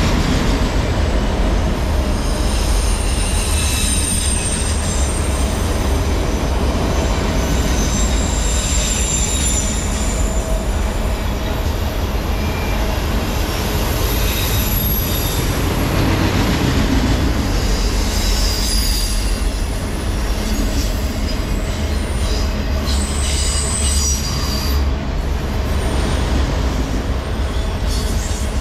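Freight train of loaded autorack cars rolling by: a steady low rumble of steel wheels on the rails, with thin high-pitched wheel squeals coming and going.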